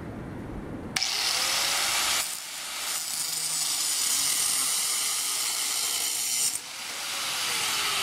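Angle grinder switched on about a second in, its disc grinding into the steel bar of a branding iron with a steady high whine and a rasp. Near the end its pitch falls as the disc winds down.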